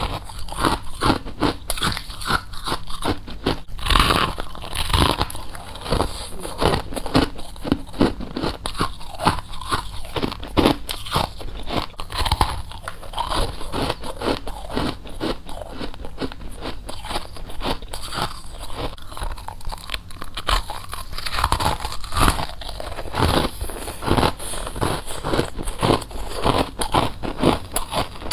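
A person biting and chewing frost: dense, crisp crunching, many crunches a second, with a few louder bites among them.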